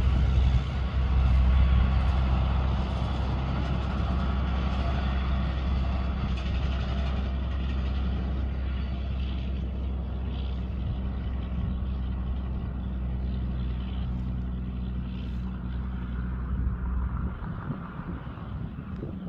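Heavy semi-trailer truck's diesel engine running as the truck drives away downhill, its low drone slowly fading and dropping off sharply near the end.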